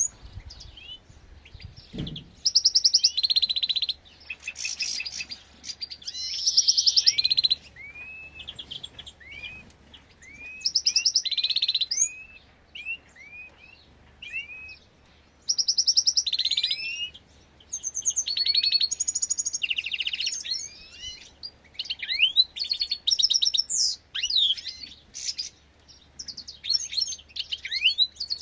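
Small finches chirping and trilling: bouts of fast, buzzy trills alternate with many short, arching call notes, with brief pauses between bouts.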